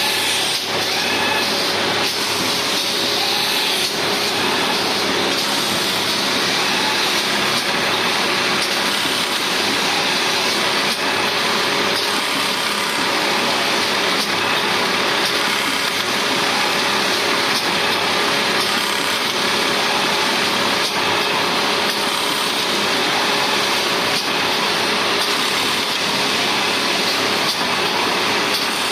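Automatic leno mesh bag-making machine running steadily: its conveyor belts, rollers and industrial sewing head make a dense, even mechanical whir with a steady hum underneath.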